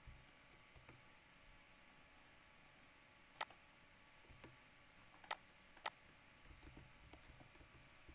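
Three sharp clicks from a computer mouse and keyboard over a faint steady hum.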